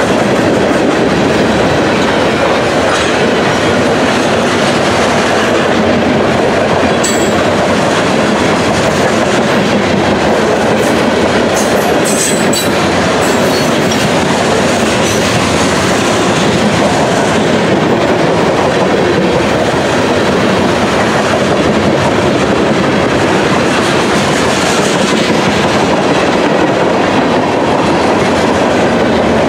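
Freight train cars—tank cars and covered hoppers—rolling past at close range: a steady, loud rumble and clatter of steel wheels on rail, with a couple of brief high squeaks.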